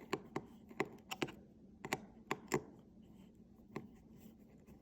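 Small sharp metal clicks and taps of a precision cross-head screwdriver turning a tiny screw on an iPhone logic board, about ten irregular clicks, most of them in the first three seconds.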